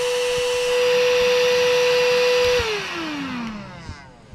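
The built-in electric pump of a Nature Hike air mattress running with a steady whine as it inflates the mattress. About two and a half seconds in it stops, and its whine falls in pitch as the motor spins down.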